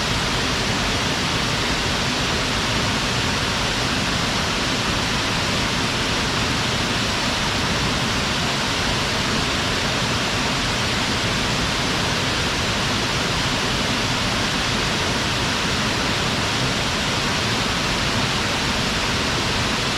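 Mountain waterfall falling steadily: a constant, even rush of water.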